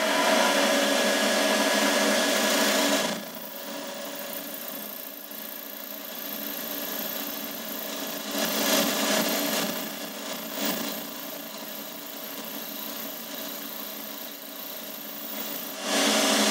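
Boxford lathe running with a turning tool cutting a diameter on a small spinning workpiece: a steady machine hum with the noise of the cut. It is loud for the first three seconds, then quieter, with brief swells, and grows loud again about a second before the end.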